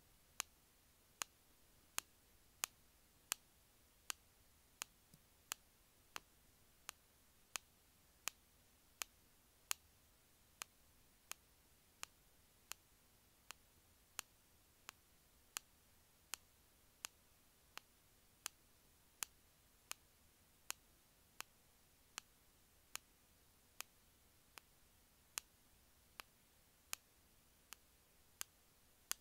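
Sharp single clicks repeated at a steady, even pace, about three every two seconds, with faint room hiss between them.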